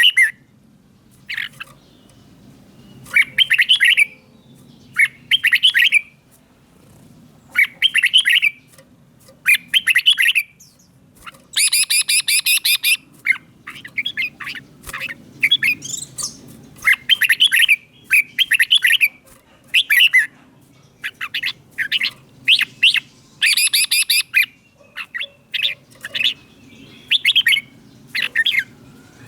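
Red-whiskered bulbul singing: short, bright phrases of quick notes repeated every second or two, with a couple of harsher, rasping calls mixed in.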